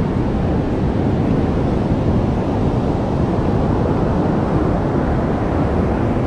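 Steady rush of strong ocean surf breaking on the beach, mixed with wind buffeting the microphone.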